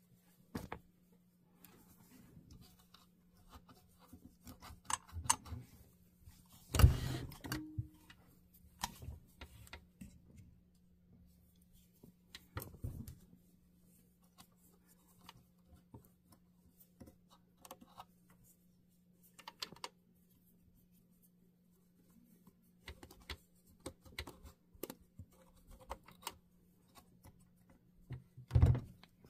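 Small irregular clicks, taps and scraping of a pipe cleaner being worked around the inside of a Kenmore sewing machine to clear dust, with a louder knock about a quarter of the way in and another near the end. A faint steady low hum sits underneath.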